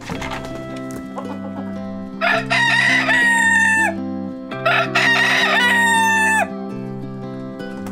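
Black rooster crowing twice, each crow a long call that slides down in pitch at the end, over background music.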